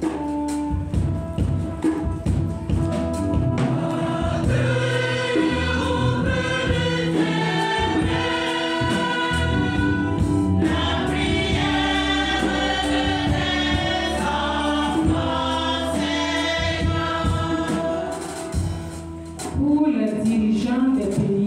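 Church choir singing the sung response to a prayer intention in the universal prayer, many voices together with percussive strokes keeping time; it dips briefly near the end before going on.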